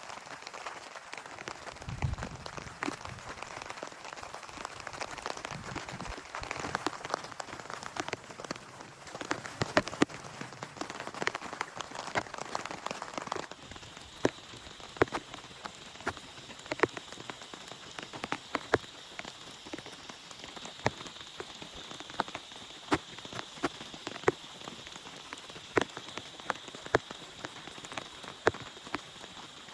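Rain falling, with many separate heavy drops striking close by over a steady hiss. About halfway through the sound changes abruptly: the hiss thins, the drop strikes stand out as spaced sharp taps, and a faint steady high tone sits underneath.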